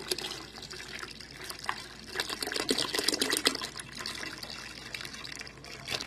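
A litre of milk poured in a steady stream into a metal pot of liquid, splashing and bubbling as it lands. It is louder for a stretch in the middle.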